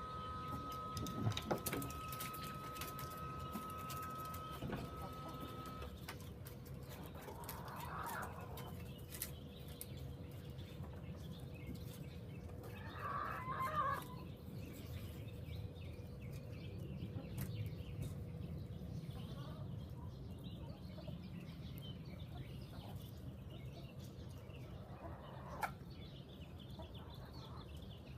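Chickens clucking now and then, with the loudest call about halfway through, over steady low background noise. A steady hum sounds for the first six seconds, then stops.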